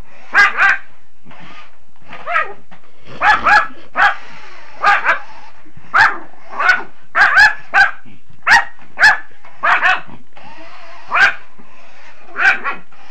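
Yorkshire terrier barking in short, high-pitched barks, about twenty of them, often in quick pairs with gaps of up to a second or so between.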